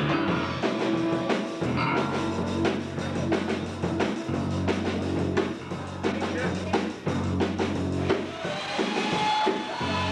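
Live rock band playing: electric bass, electric guitar and a drum kit, with steady drum strikes and a held guitar note near the end.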